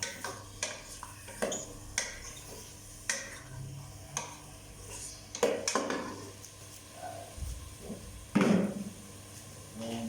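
Metal utensil clinking and scraping against a cooking pan while the food is stirred, in a string of sharp knocks about once a second, loudest a little past the middle.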